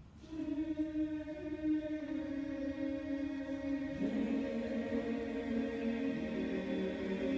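Men's barbershop chorus singing a cappella on long held notes rather than words, with lower voices joining about four seconds and six seconds in to build up the chord.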